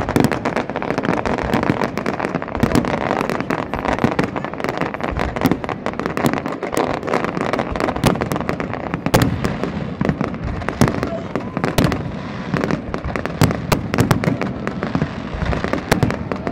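Aerial fireworks display: shells bursting overhead in a rapid, unbroken run of overlapping bangs.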